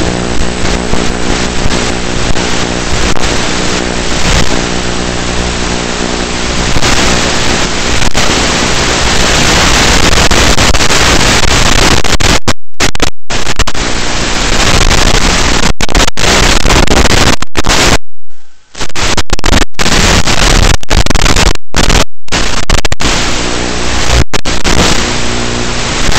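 Loud hiss and static on a small RC plane's onboard FPV recording, with a buzzing hum from its electric motor and propeller at the start and again near the end. The sound cuts out abruptly several times in the middle.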